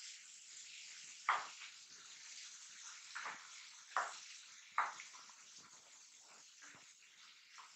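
Vegetables sizzling in hot oil in a ceramic-lined kadai while a spatula stirs them, scraping against the pan in short strokes, a few of them sharper and louder than the rest.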